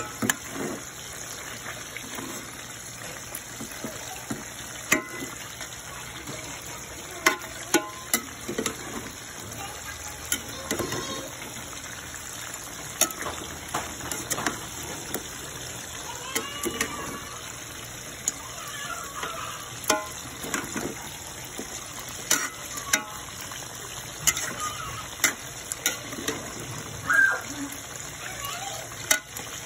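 Chicken pieces sizzling in hot oil in a metal pot as they are stirred, with irregular clinks and scrapes of the spoon against the pot.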